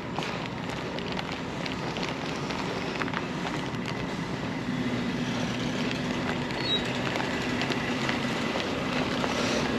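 A large delivery truck's engine running steadily nearby: a low, even hum that grows a little stronger about halfway through, with faint footsteps on pavement.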